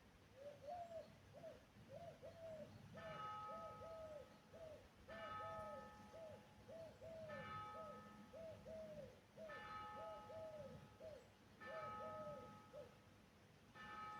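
A bird calling in a long run of short, soft hooting notes, two or three a second. From about three seconds in, a faint bell tolls about every two seconds, each stroke ringing on and fading.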